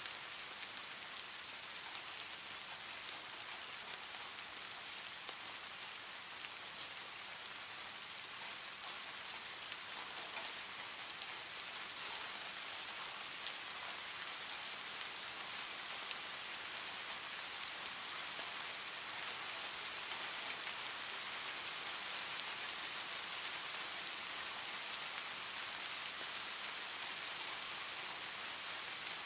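Heavy rain falling steadily: a dense, even hiss of drops with fine ticks throughout, growing slightly louder about halfway through.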